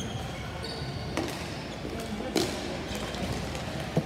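Ball hockey play: about three sharp knocks of sticks and ball striking, spaced a second or so apart, over background voices.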